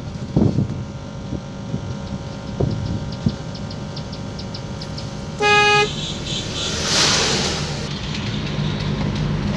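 Steady engine and road hum inside a Toyota microbus's cabin on the move. A single short horn honk comes about five and a half seconds in, followed a moment later by a brief rush of noise.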